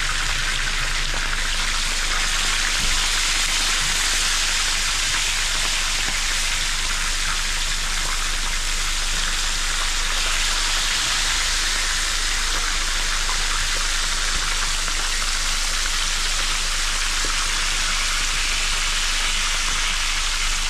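A whole mojarra (tilapia) frying in hot oil in a pan: a steady, even sizzle.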